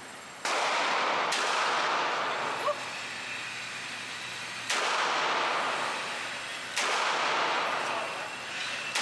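Handgun shots from a .38 Special revolver: four single shots at uneven intervals, the first two about a second apart, and a fifth right at the end. Each sharp crack is followed by a long ringing echo that dies away.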